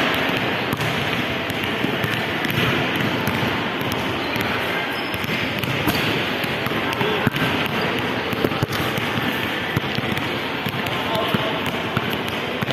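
Basketball shots knocking off the rim and backboard and bouncing on a hard tiled floor, a few sharp knocks standing out over a steady hubbub of crowd chatter echoing in a large mall hall.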